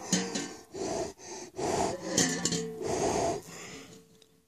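A man blowing repeatedly onto a metal bowl held close to his face: about six short breathy puffs in quick succession that fade out near the end. He is fogging the metal with his breath to bring out fingerprints on it.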